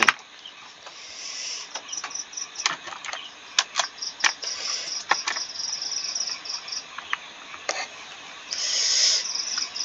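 Rapid, high-pitched insect chirping in regular pulses, swelling near the end, with a few scattered sharp clicks from a computer keyboard and mouse.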